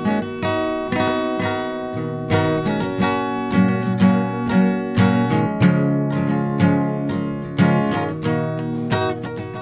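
Background music: acoustic guitar picking and strumming a steady, rhythmic tune.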